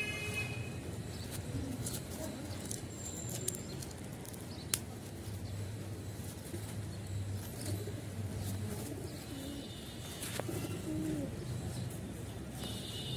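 Domestic pigeons cooing, low wavering calls that come and go over a steady low rumble. A few sharp clicks and a short high chirp near the end.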